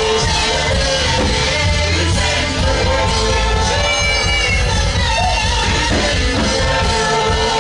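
Live worship music with singing over a steady band accompaniment and strong bass.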